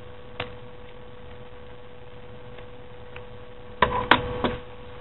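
Scissors snipping a small paper cutout: one short snip about half a second in, then a few sharper clicks near the end. A steady electrical hum runs underneath.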